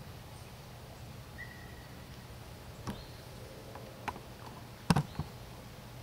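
Quiet outdoor ambience with a low steady hum, one short faint whistle-like note about a second and a half in, and a few sharp clicks, the loudest about five seconds in.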